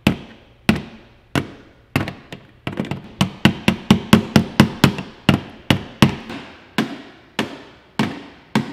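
A screwdriver handle tapping repeatedly against an old two-prong wall outlet: sharp knocks, each with a short ring, about one every two-thirds of a second, quickening to about four a second in the middle and then slowing again.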